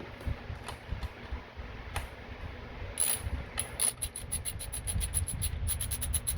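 Ratchet wrench with an 8 mm hex bit running in a bicycle crank-arm bolt. A few scattered clicks and knocks come first, then from about three and a half seconds in a fast, even clicking of the ratchet pawl, about eight clicks a second, with a brief pause near the end.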